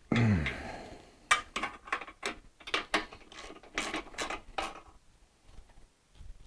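Ratchet wrench clicking in quick, irregular strokes as body-work lock nuts are tightened down. A brief low sound falling in pitch comes right at the start.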